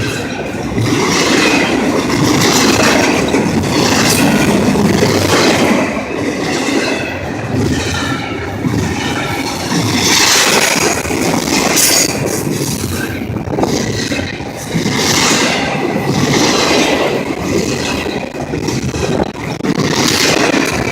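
Freight train cars rolling past close by: a loud, steady rumble of wheels on the track, with clatter coming about every second and a half and some high wheel squeal.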